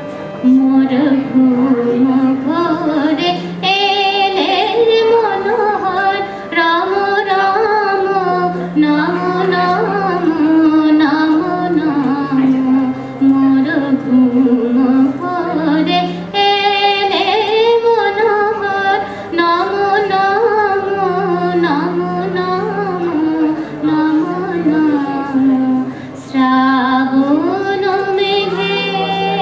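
A woman singing a slow, ornamented melody with wavering, gliding notes, phrase after phrase. Held low harmonium notes sound underneath her voice, and there are no drums.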